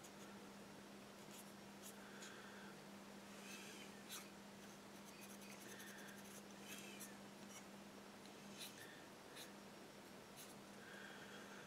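Faint scratchy rubbing of a cotton bud over a plastic model part in short strokes, with small clicks as the part is handled, as excess wash is wiped off. A steady low hum runs underneath.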